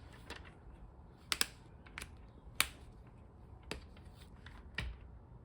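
Irregular sharp clicks and taps of disc-bound planner pages being worked off and onto the planner's discs, about seven in all, two in quick succession about a second and a half in.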